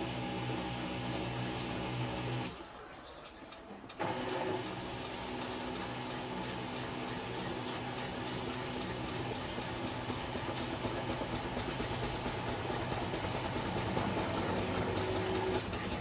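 Samsung Eco Bubble front-loading washing machine running its wash cycle: a steady motor hum with the drum tumbling. It stops about two and a half seconds in and starts turning again at about four seconds, the drum pausing before it reverses, then grows slowly louder.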